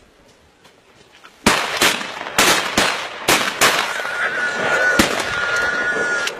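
A rapid, irregular volley of about nine gunshots from hunting guns fired at running wild boar, starting about a second and a half in.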